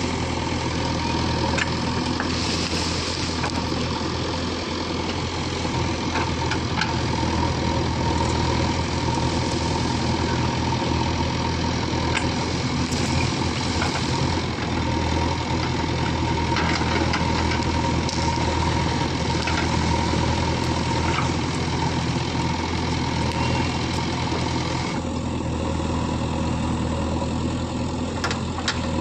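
Diesel engine of a heavy earthmoving machine running steadily, with scattered short clicks and knocks over the top.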